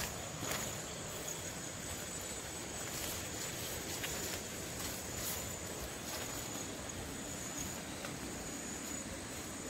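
Night insects chirping as a steady high-pitched drone over a low hiss, with a few faint clicks.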